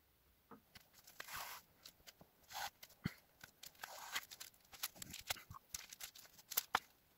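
Faint crinkling and rustling of a foil bubble-insulation window cover and its fabric edging being handled, with many small scattered clicks and a few brief swishes.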